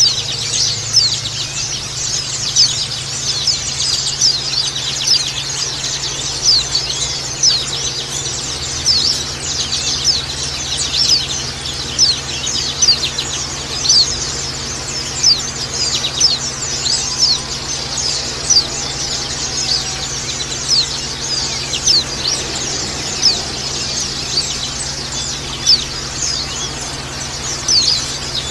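A flock of white-eyes (pleci) twittering together: dense, overlapping high-pitched chirps that never stop, with louder calls standing out about once a second. A steady low hum runs underneath.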